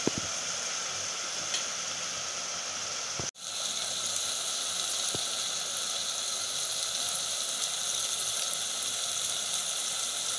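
Chopped onion, tomato and ginger-garlic paste frying in hot oil in a pot over a high gas flame: a steady sizzle. There is a single knock at the start, and the sound drops out for an instant about three seconds in.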